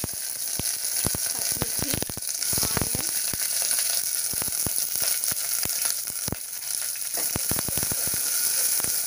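Curry leaves, sliced onions and green chillies frying in hot oil in a steel pot: a steady sizzle with many sharp crackles and pops. A ladle stirs them near the end.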